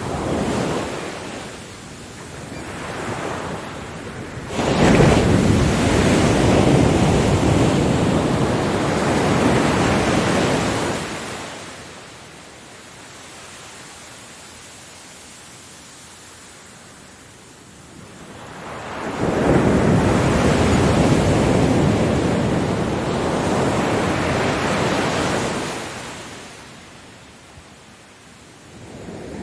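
Ocean waves breaking on a beach. Two large waves crash and wash out over several seconds each, with smaller surges near the start and end and a quieter wash of surf between.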